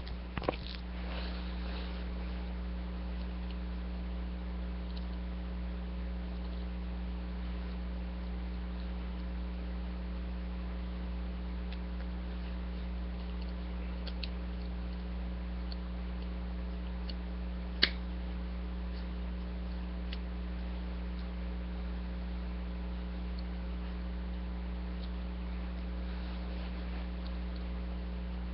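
Steady electrical hum, with a few small clicks of plastic toy parts being handled and fitted together, and one sharp click a little past the middle.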